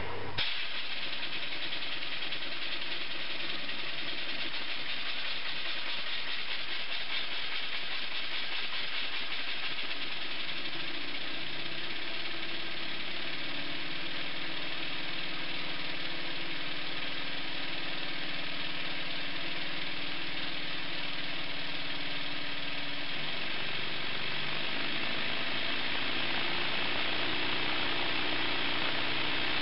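Small wobbler (oscillating-cylinder) engine running steadily, with a hissing exhaust. Its note shifts a little about two-thirds of the way through.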